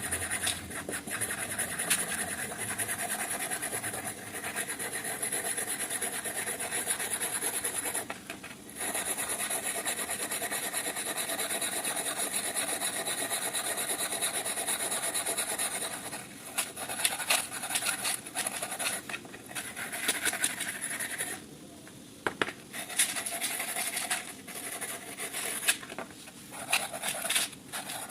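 Abrasive rubbing on the steel of an old rusty wrench during rust removal and polishing. It runs in long steady stretches with a short break about eight seconds in, then turns to shorter strokes separated by pauses in the second half.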